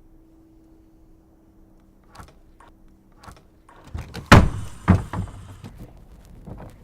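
A door being handled: a couple of light clicks, then two loud thuds about half a second apart, followed by a run of smaller knocks. A low steady hum stops just before the loud thuds.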